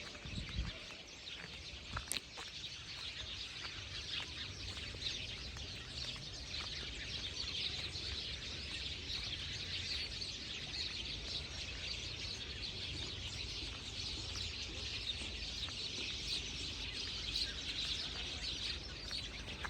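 Many small birds chirping and twittering together in a dense, continuous chorus.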